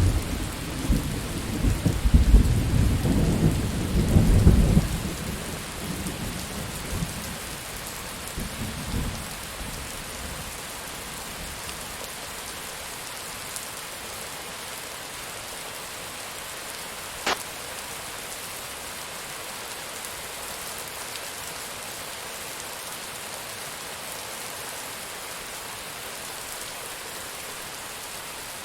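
Steady rain falling, with a rolling thunder rumble at the start that fades away over the first nine seconds or so. About seventeen seconds in there is one sharp tap.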